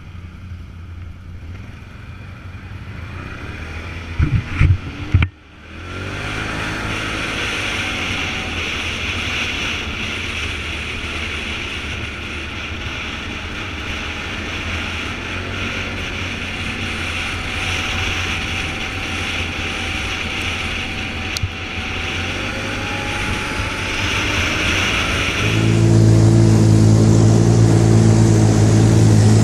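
Vehicle driving, its engine running under a steady haze of road and wind noise, with a few loud knocks about four to five seconds in; near the end the engine note becomes much louder and deeper.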